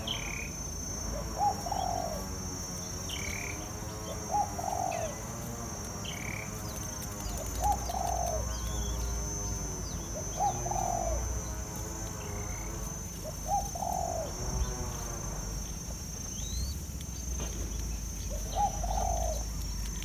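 A dove cooing, a short low phrase repeated about every three seconds, with small birds chirping and a steady high-pitched insect drone behind.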